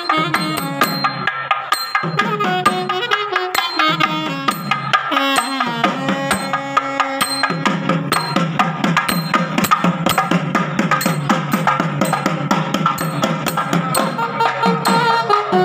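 Traditional South Indian temple procession music: a melody line moving in steps over fast drumming on barrel drums. The drum strokes grow denser about halfway through.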